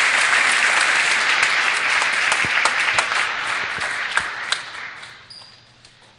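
Audience applause in a large hall: dense clapping that dies away over the last couple of seconds, with a few last single claps near the end.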